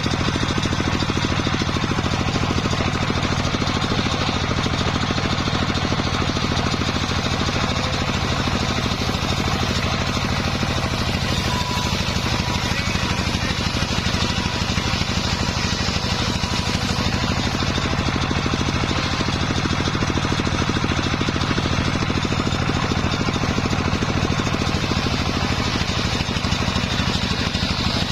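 Sawmill circular saw rig running steadily, a loud, even machine drone with a fast regular pulse.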